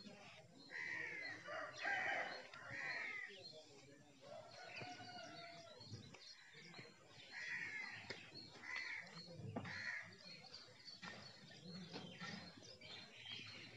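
Birds calling, likely domestic fowl: short arched notes in two runs of three, about a second in and again about seven and a half seconds in, over faint background noise.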